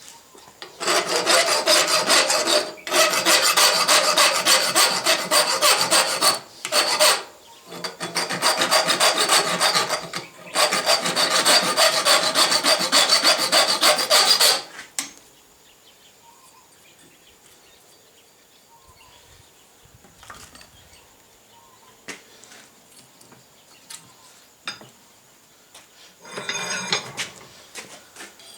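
Rapid hand scraping on steel, a file or brush worked back and forth in four runs of a few seconds each with short breaks between them. This is followed by a quiet stretch with a few light clicks, and a brief run of scraping near the end.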